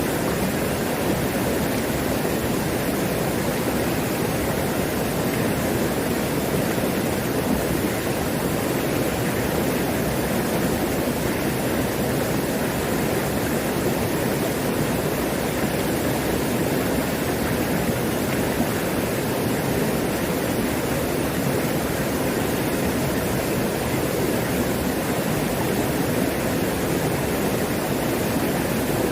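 Mountain valley stream running full, a steady, unbroken sound of flowing water.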